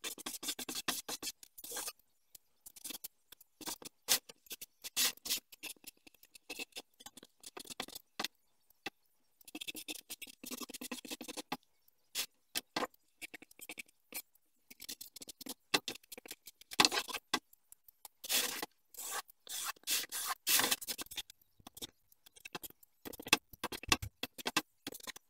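Felt-tip marker rubbing across a board as letters are written, in short scratchy strokes with silent gaps between.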